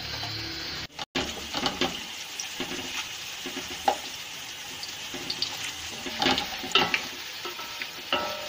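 Sliced onions frying in hot oil in an aluminium pot, a steady sizzle, with a wooden spoon stirring and knocking against the pot, more loudly near the end. The sound cuts out briefly about a second in.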